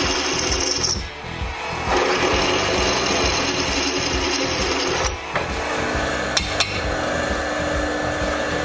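Drill press bit cutting holes in a metal hinge plate: a harsh grinding for about a second, a short pause, then about three seconds more. After that the drill press runs on without cutting, with a few sharp clicks of the plate being handled.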